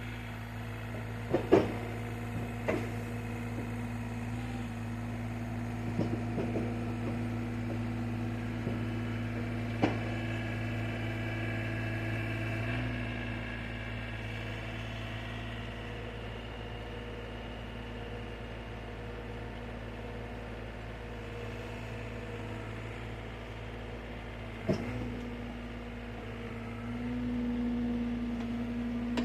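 Heavy engine idling steadily, with a few sharp metallic knocks and clanks over it, the idle swelling slightly near the end.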